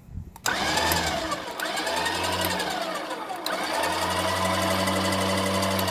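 Sherpa Stallion 25k electric winch running on its first test after installation. The motor and gear train whine starts about half a second in and runs in three stretches, its pitch rising and then sagging in each, over a steady low hum.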